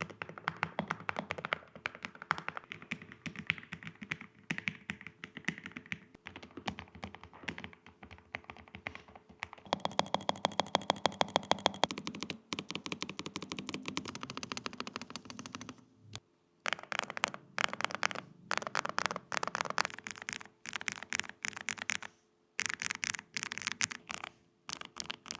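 Typing on low-profile keyboards: quick runs of key clicks, with a very fast, even run of loud clicks in the middle and, in the last third, short bursts of typing broken by brief pauses.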